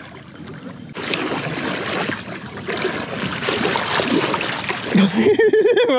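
Water splashing and sloshing as a hooked bass thrashes at the surface and is brought in by hand in shallow creek water. A man's voice exclaims near the end.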